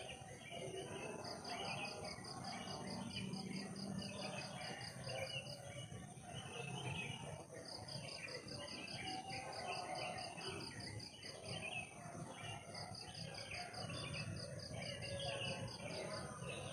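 Forest insect chorus: a fast pulsing high trill of about five pulses a second comes in trains of several seconds, three times, over a steady high-pitched insect drone and scattered chirps.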